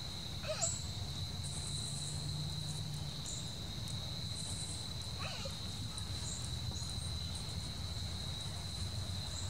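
Crickets trilling in one steady, unbroken high tone, with a low background rumble underneath and a few faint short chirps.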